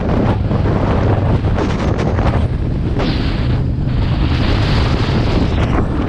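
Loud wind buffeting the microphone of a camera on a moving motorcycle, over a low rumble from the bike on the gravel track. The hiss grows stronger about halfway through and drops back near the end.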